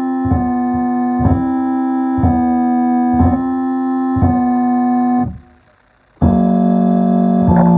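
Keyboard music: a sustained chord struck again about once a second, a break of about a second around five seconds in, then a new, lower chord that changes near the end.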